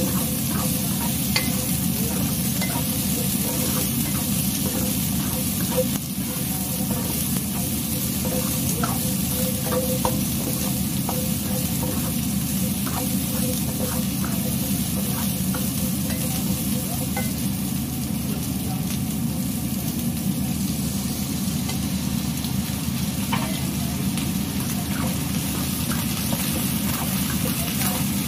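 Sliced celery stalks and garlic stir-frying in oil in a nonstick pan: a steady sizzle, with a spatula scraping and clicking against the pan now and then. A steady low rumble runs underneath.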